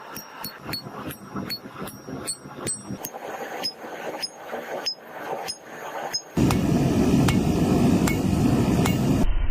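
Hammer blows on metal, about three a second, each with a high metallic ring. About six seconds in, a much louder steady noise cuts in abruptly.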